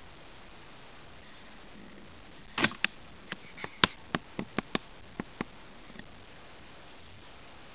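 A quick, irregular run of about a dozen sharp clicks and taps over a faint steady hiss, loudest a little past the middle.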